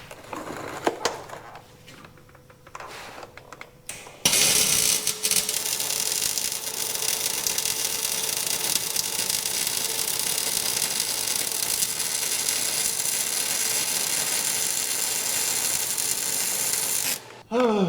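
Welder laying one continuous bead on car body metal: a steady, loud hiss with a faint hum that starts suddenly about four seconds in and cuts off abruptly near the end. A few light clicks come before it. The metal surface was not prepped before welding.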